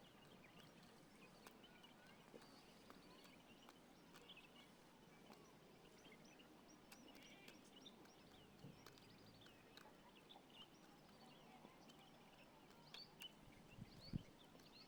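Faint outdoor ambience: a quiet background with scattered short, faint chirps and clicks, and a few soft thumps near the end.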